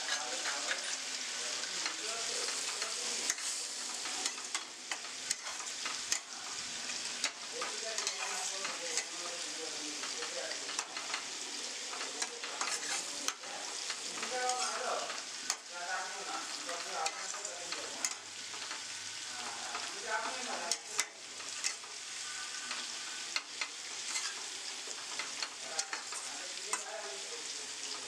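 Spice paste frying in a steel kadai, sizzling steadily while a flat steel spatula stirs it, scraping and tapping against the pan in many short strokes throughout.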